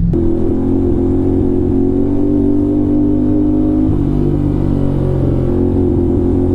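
Motorcycle engine running at steady revs while riding, its pitch shifting once about four seconds in.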